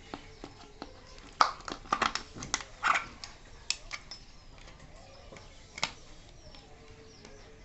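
Ceiling fan parts being handled: sharp clicks and knocks as the canopy covers are lifted off the downrod and set down. Several come in the first three seconds and one more about six seconds in.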